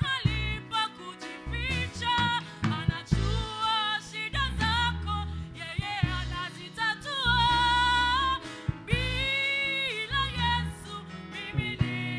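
Gospel worship song: a singer's voice over instrumental backing, with two long held notes in the middle.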